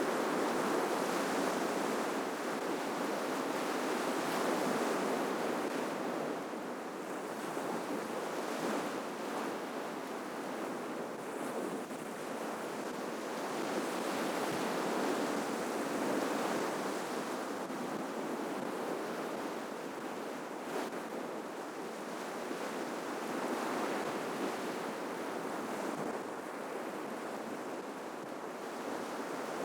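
Ocean surf breaking and washing on a shore: a steady rushing hiss that swells and eases every few seconds.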